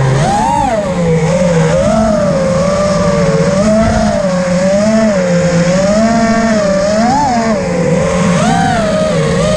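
Small FPV drone's electric motors and propellers whining, the pitch rising and falling continually with the throttle.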